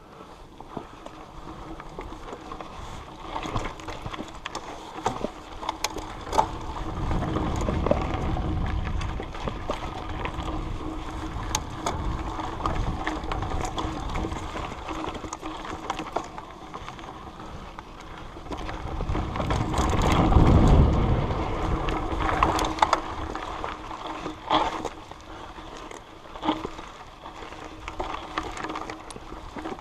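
Wind rushing over a chest-mounted camera during a trail ride, with tyre noise on the dirt and many scattered knocks and rattles from the loose mount. The rush swells loudest twice, about 7 seconds in and again about 20 seconds in.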